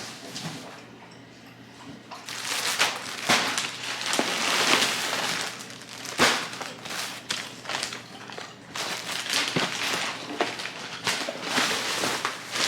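Packaging being handled and unwrapped, crinkling and rustling in dense bursts with a few sharp crackles, starting about two seconds in.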